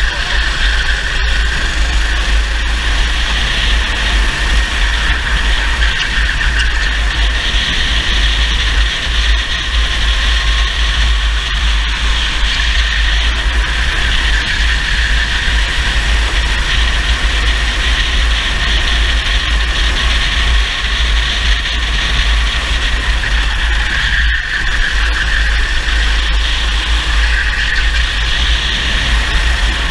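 Racing kart engine running hard at high revs on track, its pitch wavering a little as the driver lifts and accelerates through corners. A constant low rumble of wind buffeting on the kart-mounted camera lies under it.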